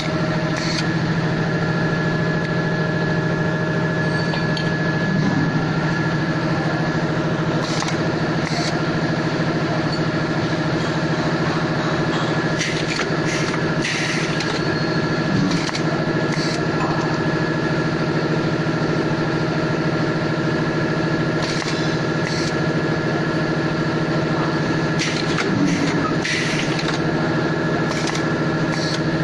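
Fully automatic rivet machine with automatic washer feed running: a steady hum made of several held tones, broken at irregular times by short sharp clacks, some coming in quick clusters, as tubes are handled and riveted.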